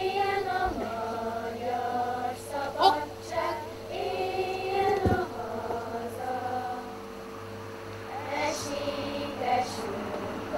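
Children's choir singing together, holding sustained notes in a slow melody.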